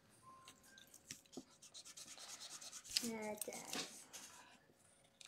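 Pencil scratching on paper in short drawing strokes, faint. A brief voice sound about three seconds in.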